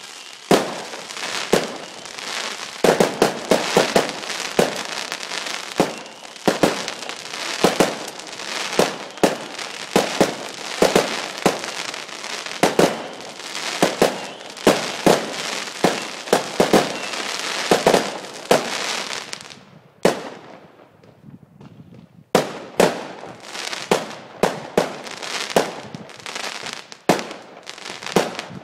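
Private fireworks going off in quick succession: many sharp bangs from bursting shells over continuous crackle. About two-thirds of the way through they thin out to a short lull, then the bangs start again.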